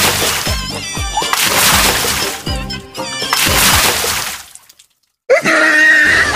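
Background music with a steady beat that stops about four and a half seconds in; after a short silence, running or splashing water starts near the end, with a high thin tone over it.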